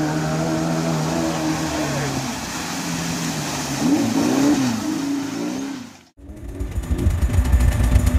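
Suzuki Samurai's 1.6-litre G16A engine running steadily through a river ford with water splashing. Near the middle it revs up and down as the truck climbs out of the water. After a brief cut-out about six seconds in, a louder low rumble of a 4x4 driving along a dirt track.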